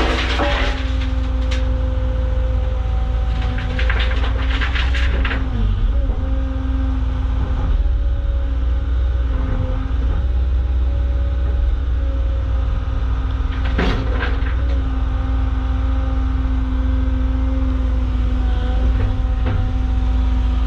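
Caterpillar excavator's diesel engine running steadily under hydraulic load, its pitch sagging briefly about five seconds in, with a few sharp clatters of rock in the bucket at the start, around four to five seconds and again near the middle.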